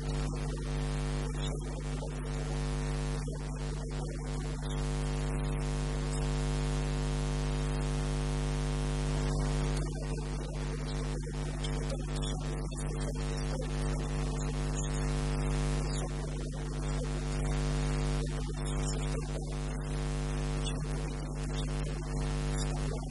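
Steady electrical mains hum with a constant hiss.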